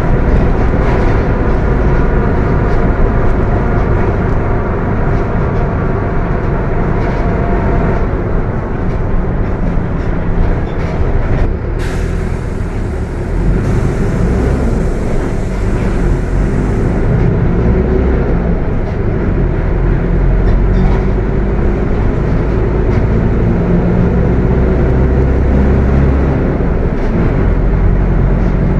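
Mercedes-Benz OF-1721 bus running under way, its diesel engine a steady low rumble with a loud transmission whine, a set of steady high tones strongest in the first eight seconds or so. About twelve seconds in, a hiss of released compressed air lasts about five seconds.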